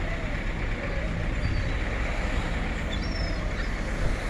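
Boat engine running steadily, a continuous low drone under a haze of wind and water noise.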